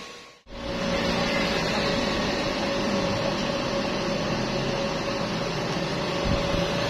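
Stick welding machine running idle, switched on with its cooling fan whirring: a steady hum with a constant mid-pitched tone. It starts after a brief gap about half a second in.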